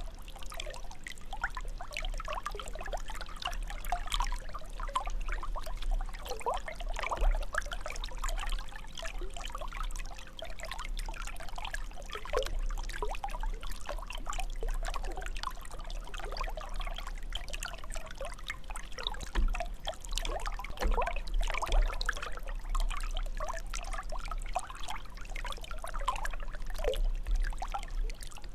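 Water jet of a fountain splashing and trickling steadily into its basin, a continuous watery patter with small splashes throughout.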